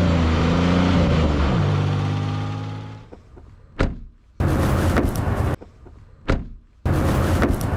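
A car engine running, its pitch dropping about a second and a half in as it eases off and fades out by about three seconds in. Then comes a sharp click, a loud mechanical burst of about a second, another click, and a second burst of about a second near the end.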